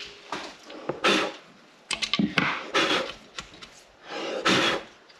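Scattered knocks and scrapes of hand work on a BBS LM split-rim bolt: a rubber mallet tapping the bolt to break its Loctite so it can be worked loose by hand.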